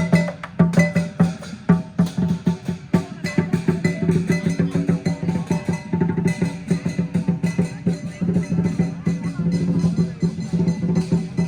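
Lion dance percussion: a drum beaten in fast, dense strokes with metallic clashing over it, playing without a break.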